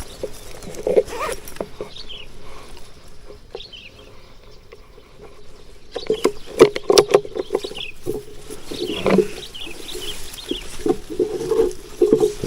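Wild birds calling: short, high chirps come and go, and a lower pitched call comes in stretches about halfway through and again near the end. Scattered clicks and rustles sound between them.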